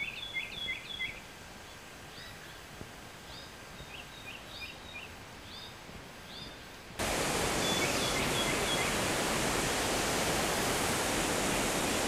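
A small songbird singing short, repeated chirping phrases over a quiet background. About seven seconds in, this cuts suddenly to the loud, steady rush of a waterfall.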